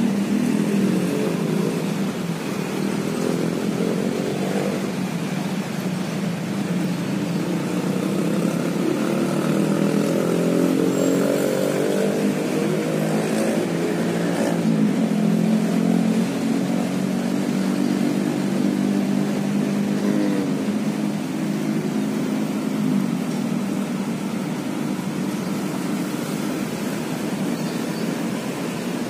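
Road traffic: motorcycle and car engines passing, their pitch rising and falling as they speed up and slow down.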